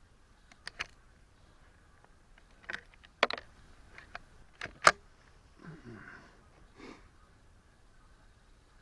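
Scattered sharp clicks and knocks of handling gear at a shooting bench, the loudest about three and five seconds in, with a brief low sound about six seconds in.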